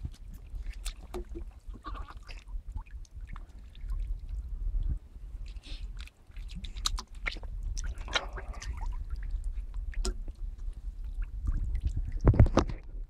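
Wading in shallow seawater: small splashes, sloshing and scattered clicks of water and pebbles, with wind rumbling on the microphone. A short, louder pitched sound comes near the end.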